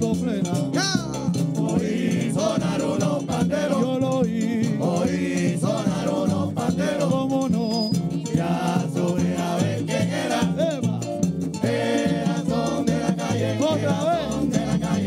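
Live plena: panderos, hand-held frame drums, beating a steady rhythm with a güiro scraping, under men singing into microphones.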